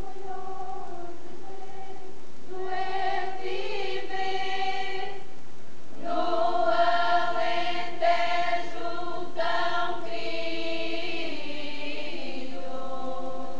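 Unaccompanied mixed folk choir singing an Alentejo folk song in slow, long-held notes. A few voices sing first, more join after about three seconds, and the full choir comes in louder about six seconds in.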